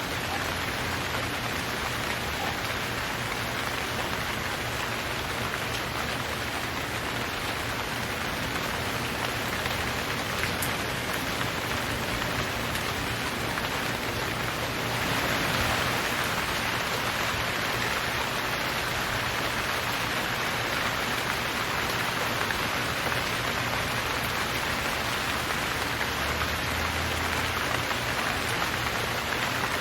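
Steady heavy rain falling, a dense even hiss of drops that swells a little louder about halfway through.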